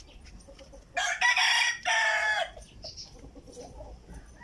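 A rooster crowing once, about a second in: a loud call in two parts lasting about a second and a half.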